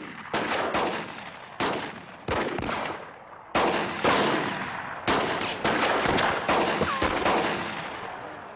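Gunfire in a shootout: many shots from several guns at irregular spacing, each a sharp crack with a trailing echo, with quick runs of shots in the second half.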